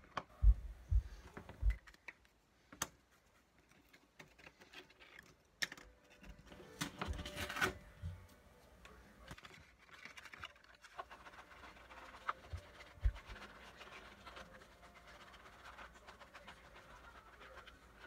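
Hands handling small objects on a workbench: a few soft thumps in the first two seconds, a click, a short scratchy rustle about seven seconds in, and two more thumps around thirteen seconds. Faint rustling of clear plastic follows near the end.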